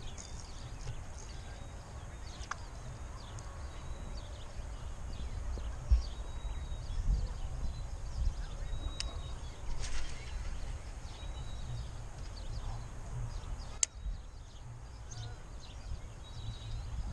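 Wind buffeting the camera microphone in an uneven low rumble, with faint short high chirps and a few sharp knocks, the loudest about six seconds in.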